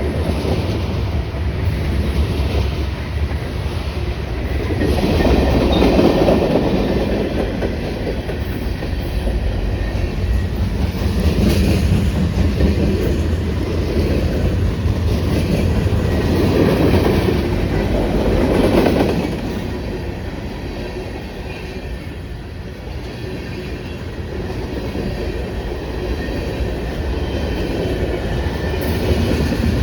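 Cars of a passing freight train rolling by: a steady rumble of steel wheels on rail, with clickety-clack swelling and fading several times as the wheel sets cross rail joints.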